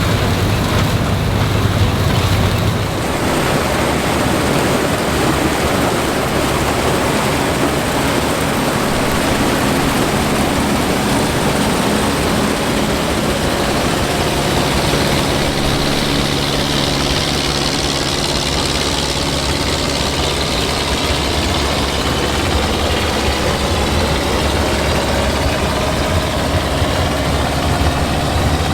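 Classic combine harvester running steadily in the field: a constant engine sound over a broad mechanical noise, which changes character about three seconds in.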